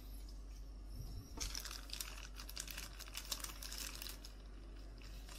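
Thin plastic crinkling as it is handled in gloved hands, likely a penny sleeve being worked onto a trading card. It is a dense run of fine crackles from about a second and a half in until about four seconds, and it ends with one sharp click.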